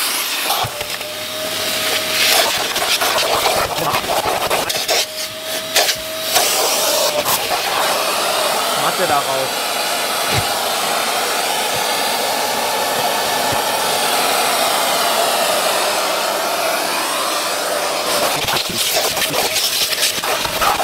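Vacuum cleaner running steadily while a car interior is vacuumed. The suction sound shifts, dips briefly several times and is broken by short clicks and knocks as the nozzle moves over and bumps the surfaces.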